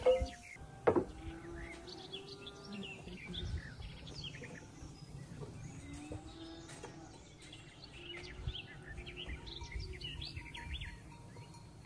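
Small birds chirping and calling throughout, with a few longer, lower drawn-out calls among them. Two sharp knocks sound in the first second over a low steady background rumble.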